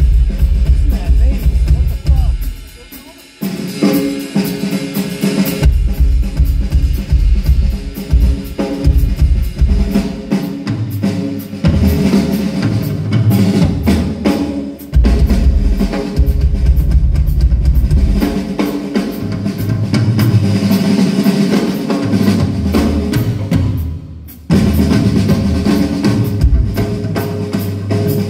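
Rock drum kit played hard, with kick drum, snare and cymbals, and low ringing tones under the beat. The playing breaks off briefly about three seconds in and again near the end.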